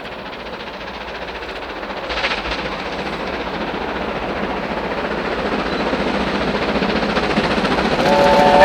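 Steam locomotive 70000 Britannia, a BR Standard Class 7 Pacific, approaching with its train, the rail noise growing steadily louder, with a brief surge about two seconds in. A steady pitched tone starts near the end.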